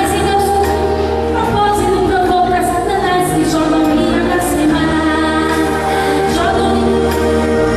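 Woman singing a gospel worship song into a microphone over instrumental backing with a steady bass line.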